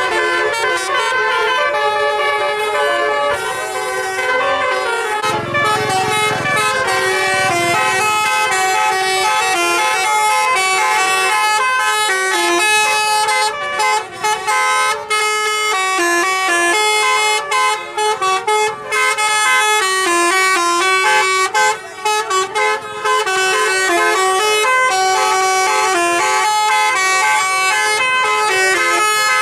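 Tour-bus telolet horns playing a fast melody, the notes stepping up and down in quick succession without a break. A low rumble joins them for a few seconds about five seconds in.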